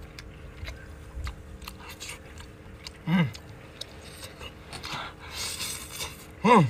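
A person eating with the mouth close to the microphone: wet chewing and biting clicks on octopus and noodles, with a hissy slurp of instant noodles about five to six seconds in. Two short falling voice sounds, one about three seconds in and the loudest near the end.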